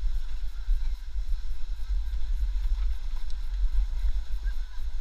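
Wind buffeting the action camera's microphone as it moves down a snowy slope: an uneven low rumble.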